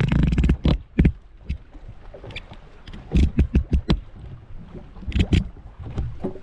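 Short groups of sharp knocks and clatter, one group of about five quick strokes a little past the middle, with low thumps underneath.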